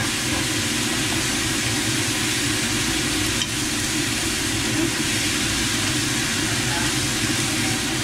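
Food sizzling steadily as it is stir-fried in a hot pan.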